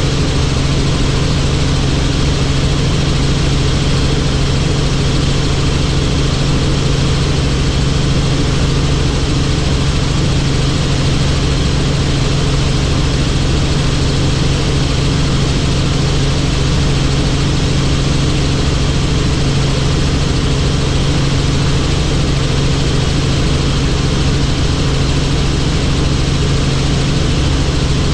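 Helicopter in flight: a loud, steady drone, a strong low hum under an even hiss of engine, rotor and air noise.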